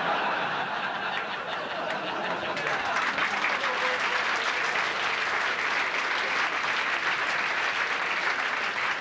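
Comedy club audience laughing and applauding in response to a joke. The clapping grows denser about two and a half seconds in and carries on steadily.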